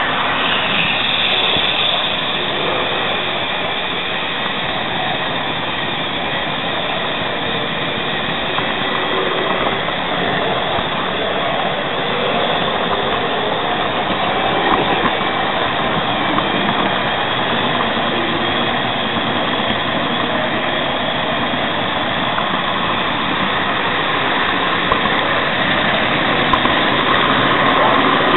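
Steady whirring rumble of a model train running, picked up by a small camera riding in a wagon on the track: wheels rolling on the rails and the electric motor of the pushing Märklin-Hamo steam locomotive model. It grows a little louder near the end.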